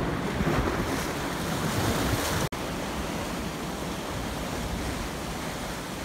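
Sea surf washing over shoreline rocks, a steady rushing noise, with wind buffeting the microphone. The sound drops out for a split second about two and a half seconds in.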